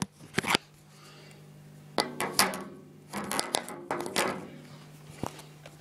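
Irregular light knocks and clattering taps of hard objects in a small room, in several clusters with a single sharp tap near the end, over a faint steady low hum.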